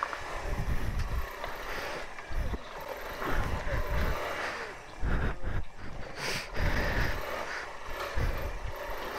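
Suzuki Van Van 125 single-cylinder engine revving in uneven bursts while the bike labours up a loose rocky climb, with irregular low rumbles and knocks on the helmet microphone.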